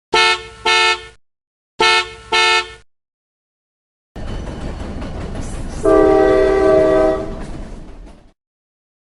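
Car horn honked in two double beeps, two short honks and then two more about two seconds later. After a pause, a vehicle rumbles for about four seconds, with a horn chord of several tones held over it for about a second and a half in the middle.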